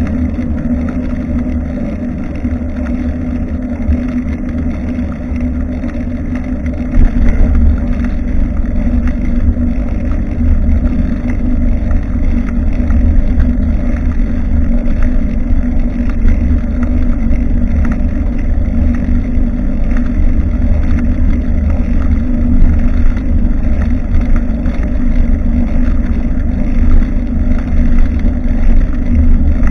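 Wind buffeting and rumbling on the microphone of a bicycle-mounted action camera while riding, over a steady low hum. It gets louder about seven seconds in.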